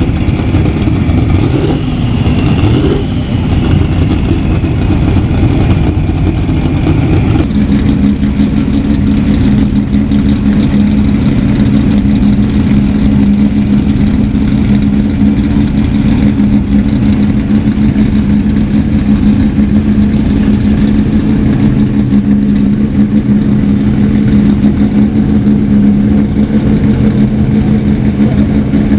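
Engines of historic 1970s–80s racing cars running loudly, with a faint high whine that drops slightly in pitch. About seven seconds in the sound changes abruptly to a steadier, deeper drone.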